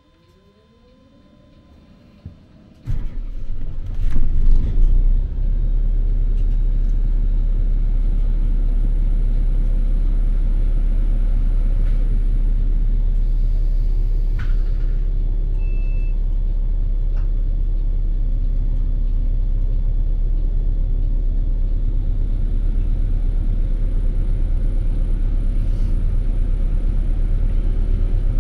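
City bus heard from inside the passenger cabin as it pulls away: a faint rising whine, then about three seconds in a sudden jump to a loud, steady low rumble of the bus driving. A short high beep sounds about halfway through.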